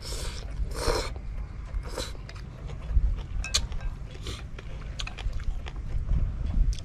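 A person slurping instant noodles, three quick slurps in the first two seconds, then chewing with scattered small clicks. A steady low rumble, like wind on the microphone, runs underneath.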